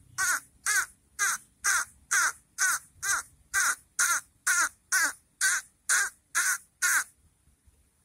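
White-breasted waterhen (ruak-ruak) calling: a loud, harsh call repeated evenly about twice a second, some fifteen times, stopping about seven seconds in.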